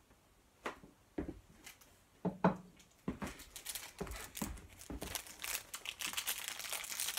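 Trading card pack wrappers crinkling and tearing as packs are handled and opened: a few separate rustles at first, then steady crinkling from about halfway through.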